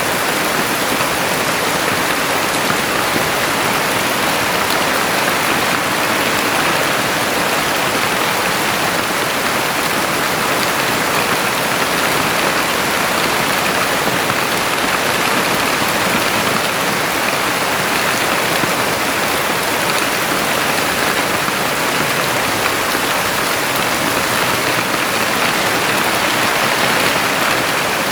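Heavy rain falling steadily, a constant even hiss of drops with no let-up.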